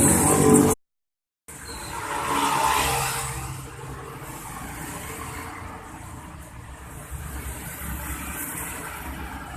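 A loud hissy sound cuts off abruptly under a second in. After a short gap, a Yamaha V75 motorcycle with an Alfa engine swells in loudness with a falling pitch as it goes past, then keeps running steadily at a lower level.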